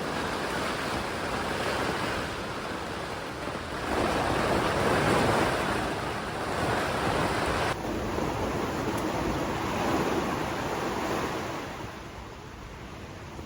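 Storm wind and heavy rain, a rushing noise with wind buffeting the microphone. A stronger gust swells about four seconds in, the sound shifts abruptly a little past halfway, and it eases near the end.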